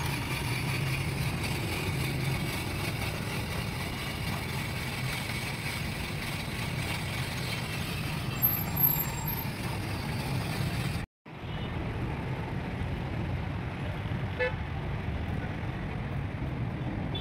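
Steady street traffic noise from passing vehicles, with a short horn toot about eight seconds in. The sound drops out completely for a moment about eleven seconds in.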